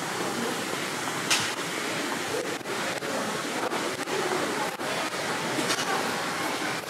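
City street ambience at night: a steady wash of noise with faint background voices, a brief sharp hiss about a second in, and scattered light clicks.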